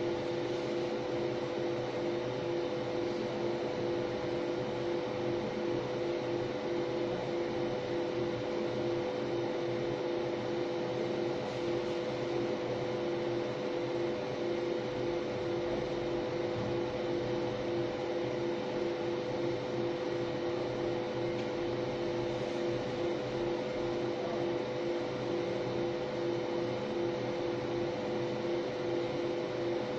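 MOPA fiber laser marking machine running a colour-marking pass on stainless steel: a steady electric hum with two pitched tones, the lower one flickering rapidly, over a fan-like hiss.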